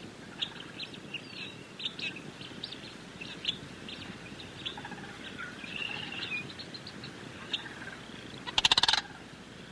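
Sandhill crane giving one loud, rolling, rattling call near the end, over scattered short high chirps and calls from other birds.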